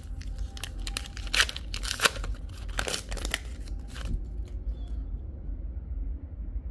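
A trading-card booster pack wrapper being torn open and crinkled: a quick run of sharp rips and crinkles over the first four seconds, then quieter rustling, over a low steady hum.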